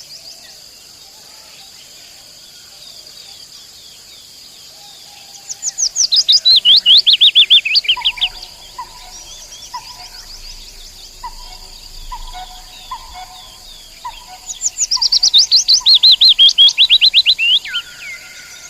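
Common nightingale singing: two loud phrases of rapid, repeated down-slurred notes, one a few seconds in and one near the end, with a soft short note repeating between them. A steady high insect drone runs underneath.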